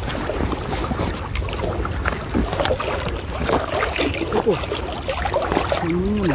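Water sloshing and splashing as people wade through waist-deep floodwater, with many small scattered splashes and crackles. A brief vocal sound near the end.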